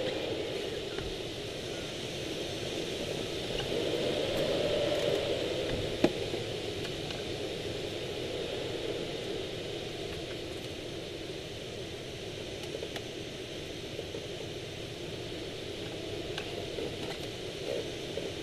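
Airflow rushing over the canopied cockpit of a Swift rigid-wing glider in flight, swelling and easing as it goes through wingovers. A single sharp click about six seconds in.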